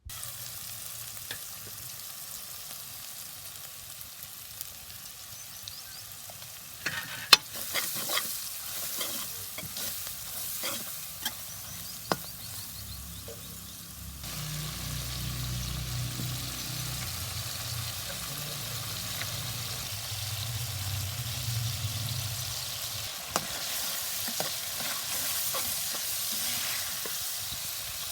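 Food for a chicken curry sizzling as it fries in oil in a pan, with a spoon clinking and knocking against the pan while it is stirred, mostly between about 7 and 13 seconds in. A low hum joins in for several seconds in the middle.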